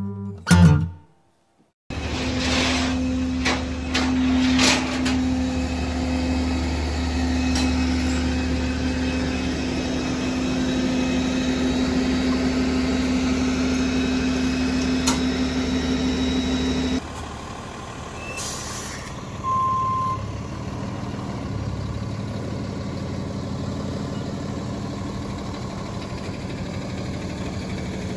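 The tail of a guitar music clip, a second of silence, then a flatbed tow truck's engine running with a steady whine and low hum while its tilting bed loads a car, with a few knocks at first. About two-thirds of the way through it drops to a quieter, steady idle, followed by a brief hiss and a short beep.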